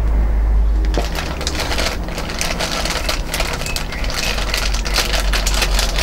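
Crinkling and crackling of cardboard packaging and plastic wrapping as a hose and small parts are handled and unwrapped, a dense run of small crackles over a steady low hum.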